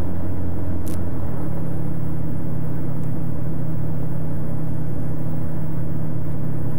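Turbocharged Rotax 915iS engine and propeller of a VL3 Evolution ultralight droning steadily in flight, heard inside the cockpit as an even, smooth low hum.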